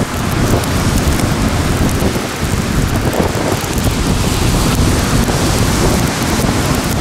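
Wind buffeting the microphone, a loud, steady, fluttering rumble under a constant hiss.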